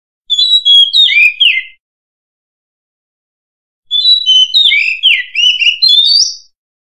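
Oriental magpie-robin singing: two phrases of varied, sliding whistled notes, the first about a second and a half long, the second starting about four seconds in and lasting about two and a half seconds, with silence between.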